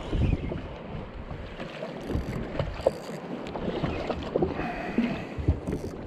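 Small waves slapping irregularly against the hull of a drifting jet ski, with wind buffeting the microphone.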